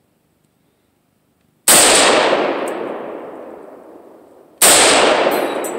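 Two rifle shots about three seconds apart, each sudden and loud and followed by a long echo that dies away slowly.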